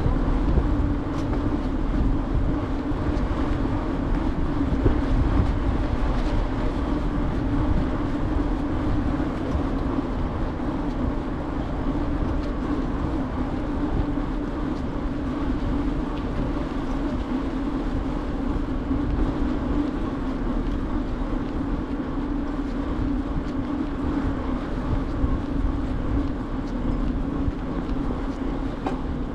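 Bicycle rolling steadily along pavement: a constant tyre hum over a low rumble, without a break.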